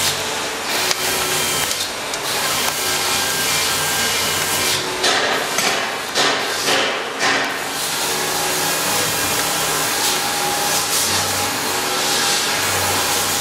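Wood fire burning in a fireplace firebox, crackling steadily, with a few louder snaps about halfway through.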